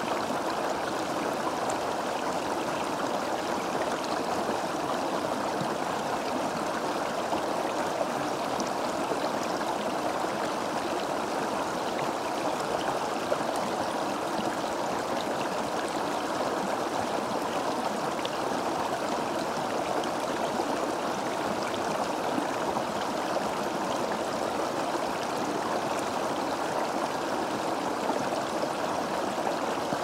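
Stream flowing fast over and between rocks, a steady, unbroken rush of water.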